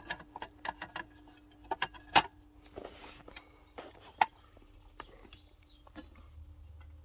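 Scattered small clicks and knocks of an opened car ECU and its casing being handled, over a faint steady hum, with a brief hiss about three seconds in.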